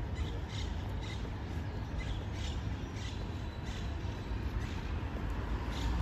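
Outdoor promenade ambience: a steady low rumble of road traffic and wind, with short footsteps on paving stones about twice a second.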